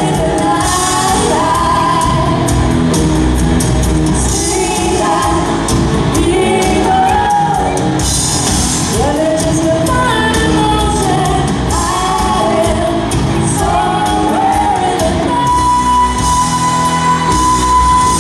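Live pop-rock band playing: a woman singing lead over electric guitar, bass guitar and a drum kit. About fifteen seconds in, a long steady held note comes in over the band.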